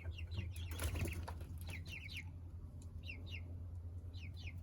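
Young chickens peeping: short, high, falling chirps in quick runs of several at a time, over a steady low hum.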